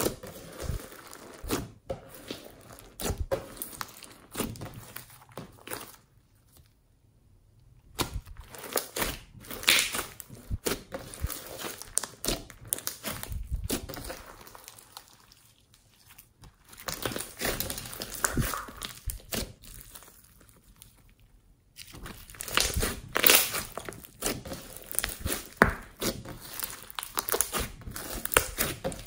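Large glossy slime mixed with small beads being poked, squeezed and kneaded by hand. It gives irregular wet crackles and pops. There are two short pauses, one about six seconds in and one a little before the last third.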